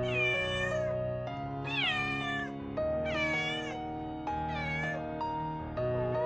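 A cat meowing four times, high-pitched calls that each fall in pitch, over soft instrumental background music.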